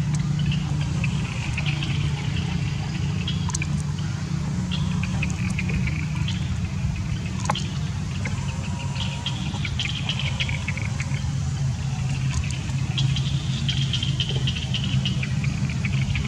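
Steady low motor hum, like an idling engine, with high chirping coming and going in short stretches and a few scattered sharp clicks.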